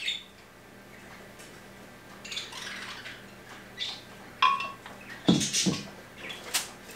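Kitchen handling sounds: a spatula scraping batter out of a blender jar into a metal baking pan, then a few sharp taps and knocks as the jar and pan are handled and set down on the counter.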